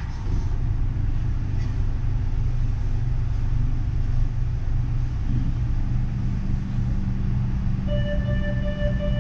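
Uijeongbu light rail train running between stations, heard from inside the car as a steady low rumble. Near the end a steady high whine made of several tones joins in.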